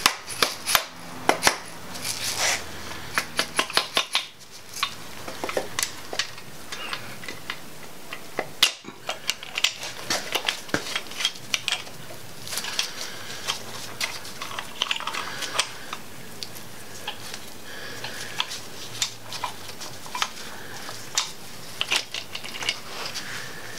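Irregular metal clinks, taps and clatter of main bearing caps and their bolts being knocked and worked loose from a GM 5.3 L LM7 cast-iron engine block, busiest in the first few seconds.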